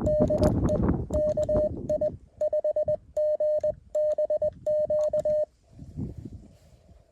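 Morse code from a Mountain Topper CW transceiver: a single steady tone keyed in short dits and longer dahs, stopping about five and a half seconds in and leaving a faint receiver hiss. Low rumbling noise comes and goes under it.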